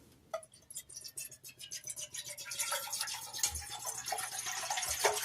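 Water being poured into a cooking pot, the splashing trickle getting steadily louder as it goes.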